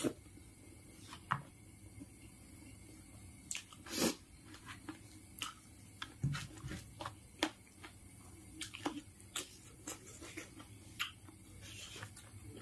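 Close-up chewing and lip-smacking of a mouthful of rice and mutton intestine curry: irregular wet clicks and smacks, the loudest about four seconds in.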